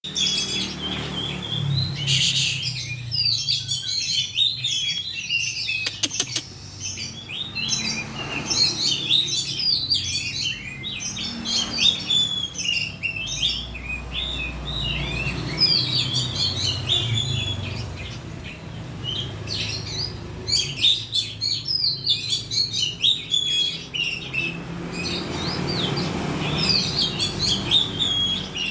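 Oriental magpie-robin (kacer) singing continuously, a rapid, varied stream of high chirps and whistles with hardly a pause. This is a lure song played to provoke a captive magpie-robin into singing.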